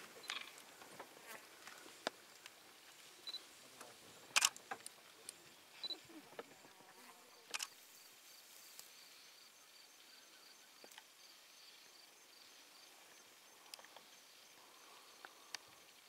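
Quiet bush ambience with scattered sharp clicks, and in the second half a faint, high-pitched chirp repeating about three times a second.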